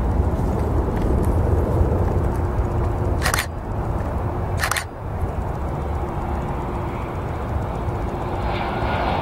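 Boeing 737-700 jet airliner on final approach, its CFM56 engines giving a steady low rumble with a faint whine, mixed with wind on the microphone. Two short, sharp noises cut in about three and a half and five seconds in.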